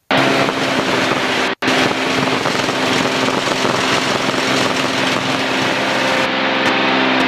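L-13 Dragonfly's piston engine and propeller running steadily at high power on the takeoff roll, heard from inside the cockpit as a loud drone over rushing air noise. The sound cuts out for a split second about one and a half seconds in.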